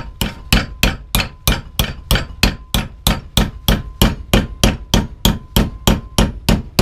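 Hammer tapping a strip of scrap aluminium clamped in a bench vise, bending it over at the crease, in a steady rhythm of about three taps a second. A faint steady ring sounds beneath the taps.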